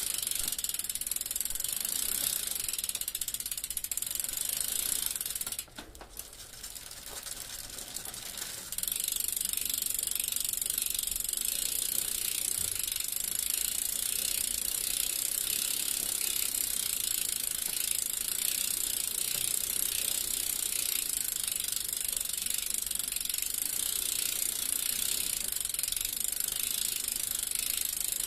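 Bicycle rear freewheel ratcheting with a rapid, continuous clicking as the rear wheel spins without pedalling. The clicking drops away about six seconds in and comes back at full strength about three seconds later.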